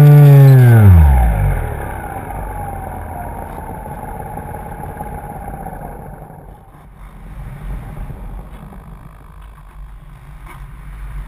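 RC plane's motor and propeller droning steadily, then throttled back: the pitch falls away over about half a second and the motor stops, which cuts power for a glide. Wind then rushes over the plane as it glides down, slowly fading.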